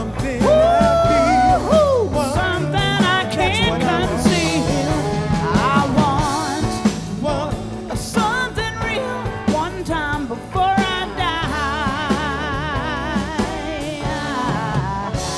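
A woman singing lead with wide vibrato on held notes over a live rock band with drum kit, electric bass and keyboards. Near the end the singing stops on a crash, and the band's held chord rings on.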